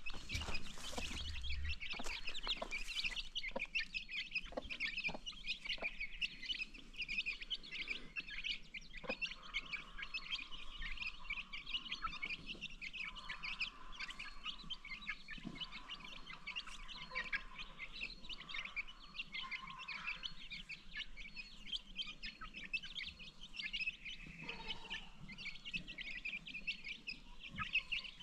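A flock of baby chicks peeping continuously in high, rapid chirps. A few light taps come in the first few seconds.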